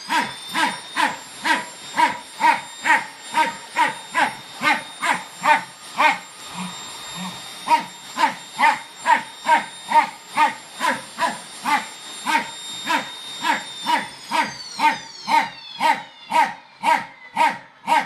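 Fox terrier barking over and over, about three barks a second, with a brief lull about seven seconds in. A Samsung vacuum cleaner's motor whines steadily behind the barks, then winds down with a falling pitch about fourteen seconds in.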